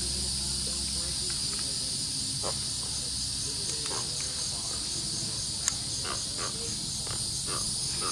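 Steady chorus of insects, a high-pitched drone with a fine rapid pulse. A single sharp click sounds a little past halfway.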